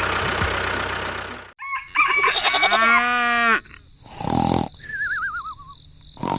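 A rooster crowing once, a loud drawn-out call starting about two seconds in, after a rushing noise. A short wavering whistle that falls in pitch follows.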